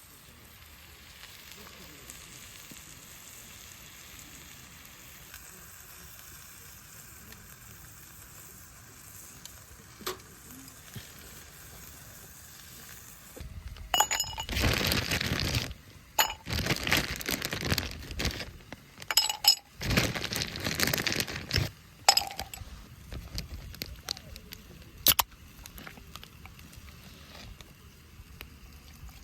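Meat frying in a hot pan over a Swedish torch, with a faint steady sizzle. About halfway through come several loud spells of sizzling, with metal clinks and clicks.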